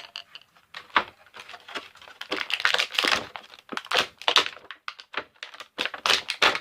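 Stiff plastic toy packaging crinkling and clicking in quick, irregular bursts as an action figure is worked free of its plastic tray.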